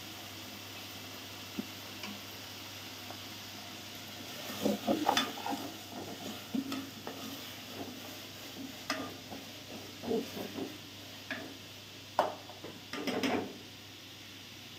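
Meat frying in oil in pots on a gas stove with a faint steady sizzle. From about four seconds in, a spoon scrapes and knocks against the pot in irregular strokes as the frying mince is stirred.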